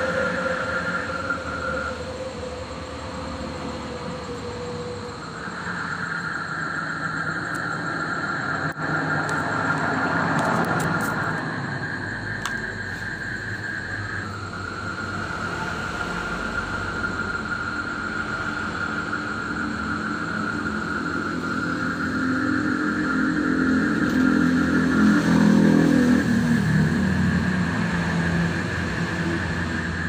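Night chorus of frogs calling steadily, the chorus stopping and starting again several times. Motor vehicles pass at intervals underneath, the loudest passing about three-quarters of the way through.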